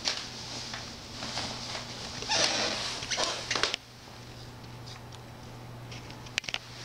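Siberian cat licking and grooming a rabbit's fur: soft wet licking and rustling with scattered light clicks, a louder stretch of rustling a little over two seconds in, over a faint steady low hum.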